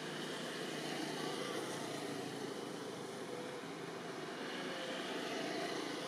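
Steady outdoor background noise: an even hiss with no distinct event.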